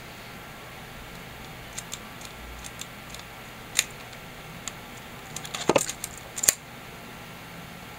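Small mechanical clicks from a Canon TX 35 mm film SLR and its lens being handled: a few light ticks, a sharper click near four seconds in, then a quick run of louder clicks around six seconds in.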